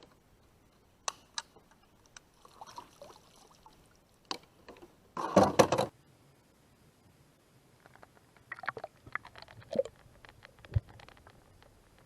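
Water splashing as a rock bass is released back into the river, with one louder splash lasting under a second about five seconds in, among scattered small clicks and knocks.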